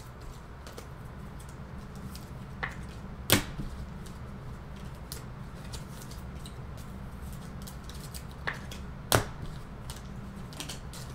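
Trading cards being handled on a table: scattered light clicks and taps, with two sharper clicks about three seconds and nine seconds in, over a low steady hum.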